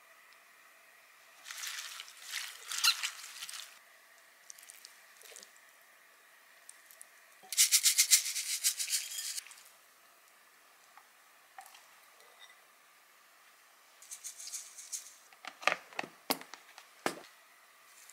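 Hand food-prep sounds: wet, crackly rustling as a seasoned blood-clam and wild-garlic salad is handled and moved onto rice. About eight seconds in there is a loud, rapid rattling burst, and near the end a cluster of rustles with light clicks and taps from chopsticks and dishes.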